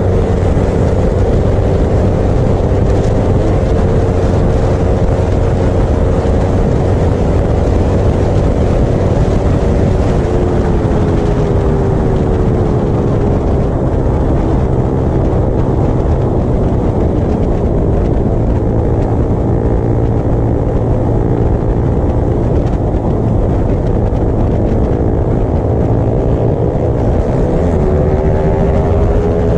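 Motorcycle engine running hard at high speed with steady wind rush. Its pitch sags about a third of the way in and climbs again near the end as the bike accelerates.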